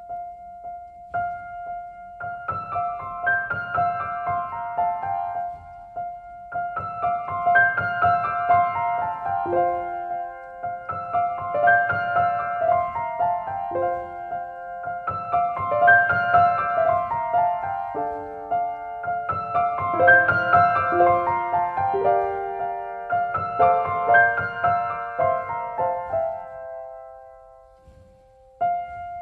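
Gentle solo piano music: repeated phrases of quick falling runs of notes over a repeated high note, each phrase a few seconds long. It fades out near the end, and a few new notes begin just before the end.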